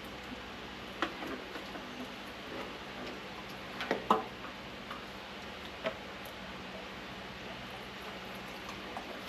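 A few light clicks and knocks from handling a thinners container and its plastic pouring spout while pouring, the loudest about four seconds in.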